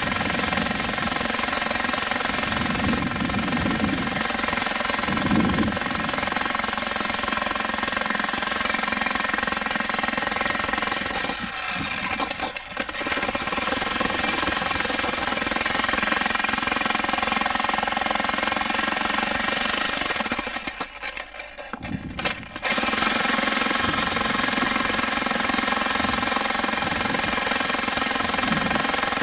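Electric jackhammer breaking rock, hammering continuously at a fast steady rate, letting up briefly about 12 seconds in and stopping for about two seconds around 21 seconds in before starting again.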